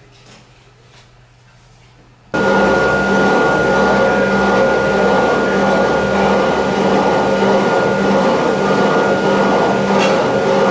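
A few faint clicks at first, then about two seconds in a loud, steady rush of air with a constant hum starts abruptly: an electric blower blowing air into a coal forge fire.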